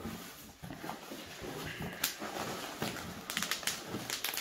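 Plastic bubble wrap being handled and pulled out of a cardboard box: rustling, with a sharp crackle about two seconds in and a quick run of crackles near the end.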